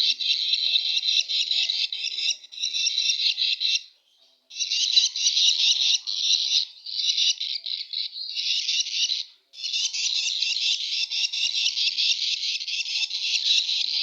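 Hungry baby lovebirds begging for food: a continuous, rapid, high-pitched chattering of calls, broken by two short pauses about four and nine and a half seconds in.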